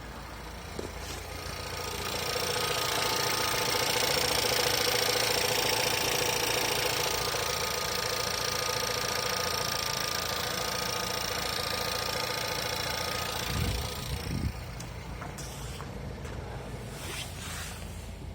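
Cold VW Tiguan 1.4 TSI CZDA engine running, with an extra whining, humming tone that comes in about two seconds in and stops about fourteen seconds in with a couple of short thumps. This is the extraneous cold-engine noise that the owner connects with the heated windshield being switched on.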